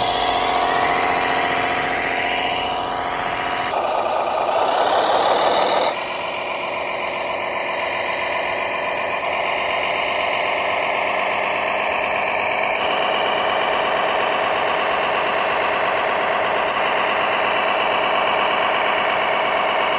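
Radio-controlled model tractors running, a steady engine-like drone with many pitched tones that changes abruptly about four, six and thirteen seconds in.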